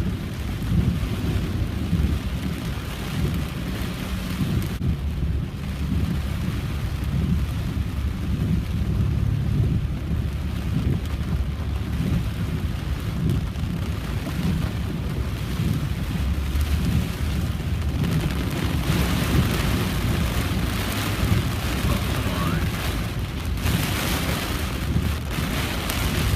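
Heavy rain on a car while driving, over a steady low rumble; the rain's hiss grows louder about two-thirds of the way in.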